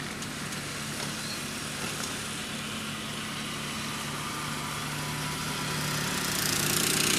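Car engine and road noise inside the cabin of a moving Volkswagen Voyage, a steady hum that grows louder from about six seconds in.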